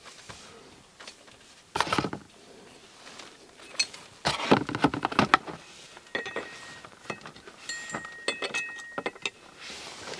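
Handling noise from a steel ball-joint separator fork, its cardboard box and a metal vernier caliper. Two louder scraping rustles come about two and four and a half seconds in, then a run of small metal clicks and clinks, a few with a brief ring, as the caliper is set against the fork.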